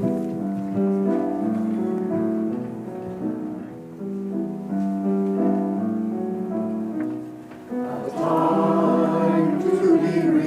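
Choir singing: soft held chords at first, then the full choir comes in louder about eight seconds in.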